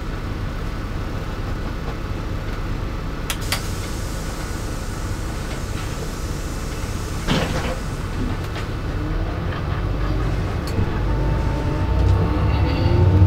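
Inside a LiAZ-5292 city bus underway: steady engine and road rumble with occasional clicks and rattles, and a knock about seven seconds in. Near the end the engine note rises as the bus accelerates.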